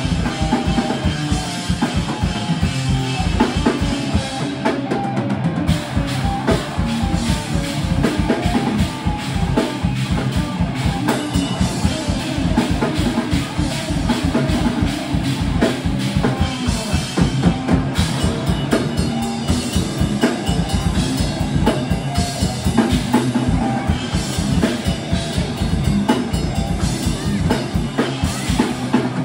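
Live death metal band playing: distorted electric guitars over a drum kit with fast, dense bass-drum strokes and snare hits.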